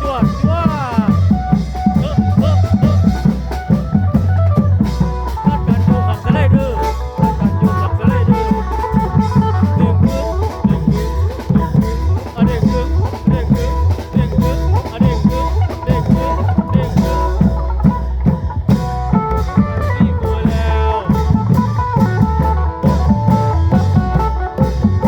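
Isan klong yao long-drum band music: a fast, driving drum beat with a melodic line over it in the style of a phin tune.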